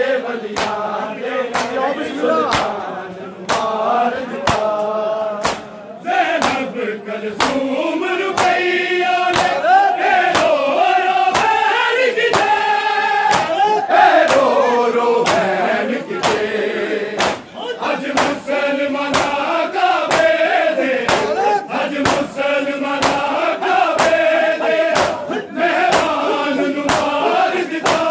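A group of men chanting a Punjabi noha (Shia lament) together, with loud hand slaps on bare chests (matam) falling in a steady beat under the singing.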